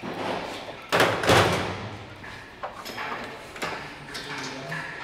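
Metal knocks and clanks of tools and engine parts being handled, loudest just after a second in, with smaller knocks through the rest.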